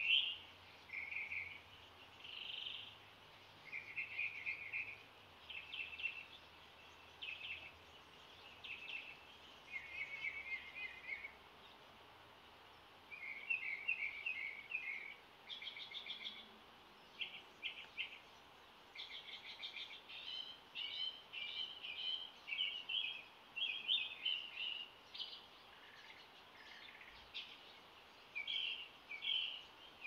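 Dawn chorus of songbirds: short high chirps and trilled phrases follow one another with brief gaps, over faint steady background noise.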